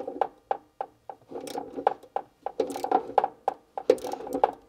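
Rapid run of sharp metallic clicks, about three a second and uneven, each with a brief ringing tone, from hand tools working at the terminals of a metal switch enclosure.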